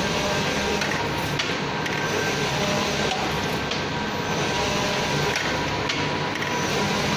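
UV printer running as its print carriage travels back and forth over backlit film: a steady mechanical noise with a thin high tone and faint clicks.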